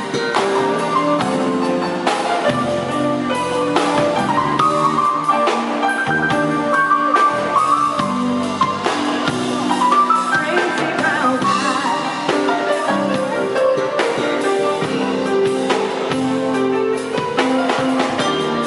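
Live band music: electric keyboards over bass and a drum kit, played without a break.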